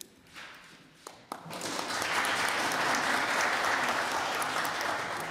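A roomful of people applauding. It starts about one and a half seconds in, after a couple of faint clicks, and holds steady until it dies away near the end.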